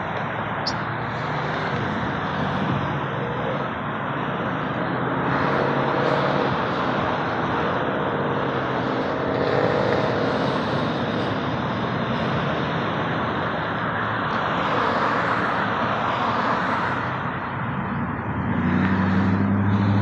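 Steady roar of a Boeing 727-200F's three Pratt & Whitney JT8D turbofan engines in flight, swelling and easing several times. A low steady drone joins near the end.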